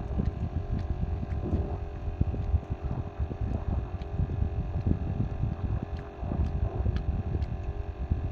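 Handling noise on a small boat while a fishing line is re-rigged: irregular low bumps and knocks with scattered small clicks, over a steady low hum.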